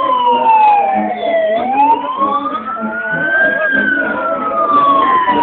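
Emergency vehicle siren wailing, its pitch falling to its lowest about a second and a half in, rising for about two seconds, then falling again.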